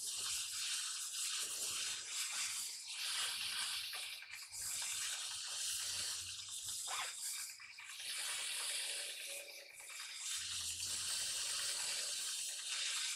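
Gas torch flame hissing steadily as it heats a truck wheel hub, the hiss dipping briefly a few times.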